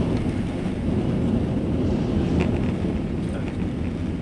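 Steady low rumble of an Airbus A330's jet engines and rushing air, heard inside the passenger cabin during takeoff.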